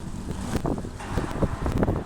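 A car driving, its engine and road noise mixed with wind buffeting the microphone in irregular gusts.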